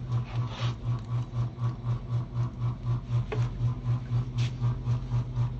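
Steady low mechanical hum from a running motor or engine, throbbing about four to five times a second, with a couple of faint clicks from wires and a clip being handled.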